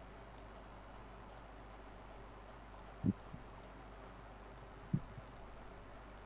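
Faint computer mouse clicks: soft scattered ticks and two duller knocks about two seconds apart, over a low steady background hum.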